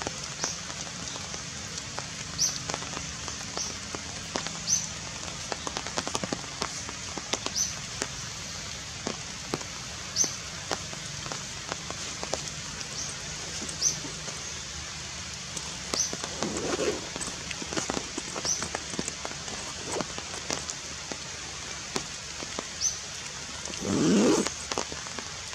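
Forest ambience: a steady hiss with short high chirps every second or two and scattered light clicks and rustles. A brief lower voice-like sound comes about 16 seconds in, and a louder one near the end.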